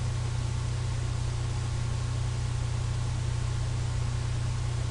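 Steady low electrical hum with an even hiss over it, unchanging throughout: the recording's background noise, with no other sound.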